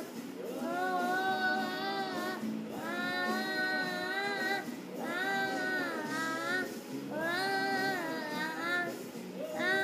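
A boy singing alone, in four long held phrases with a wavering, bending pitch and short breaths between them.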